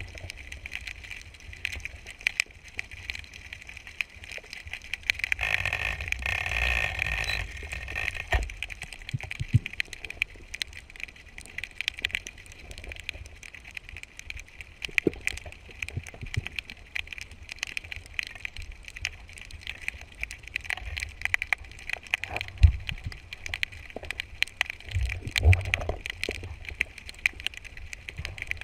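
Underwater ambience heard through a camera's waterproof housing: a dense crackle of fine clicks over a low rumble, with a louder rushing stretch about five to eight seconds in and a few dull knocks near the end.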